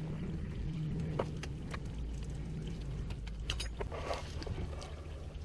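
Light scattered clicks and knocks of hand work on the truck's upper radiator hose, over a steady low hum.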